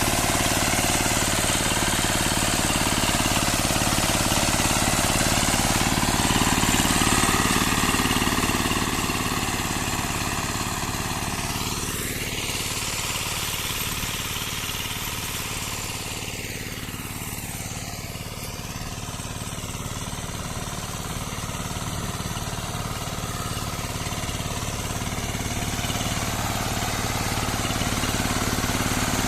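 Zubr walk-behind tractor's engine running steadily under load while rotary-tilling soil, getting somewhat quieter in the middle and louder again near the end.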